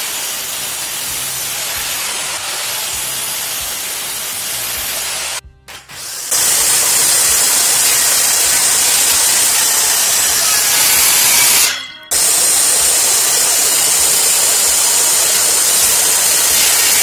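Power saws cutting wood: a sliding mitre saw crosscutting a pine board, then a DeWalt circular saw cutting through a laminated particleboard panel. The saw noise is loud and steady, with two brief breaks, and the circular saw sections are louder and hissier.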